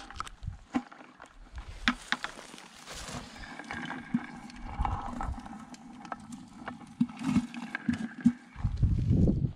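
Sharp clicks, taps and small splashes of yabbies (freshwater crayfish) being handled into a plastic bucket of muddy water. Near the end a gust of wind rumbles on the microphone.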